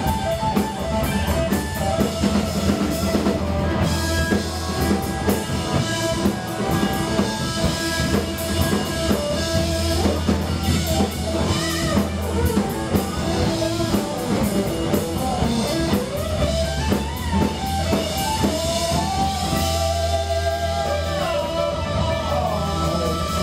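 Live rock band playing at full volume: electric guitar over a drum kit, with sustained, bending guitar notes near the end.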